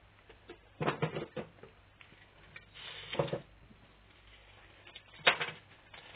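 Needle-adjusting tool being turned stiffly in a Triumph Stag carburettor piston: clusters of metallic clicking and scraping about one second in and near three seconds, with the loudest single click a little after five seconds.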